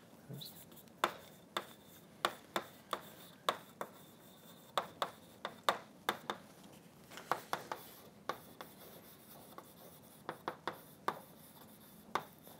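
Chalk writing on a blackboard: irregular sharp taps and short scratchy strokes, about two a second, as letters and symbols are written.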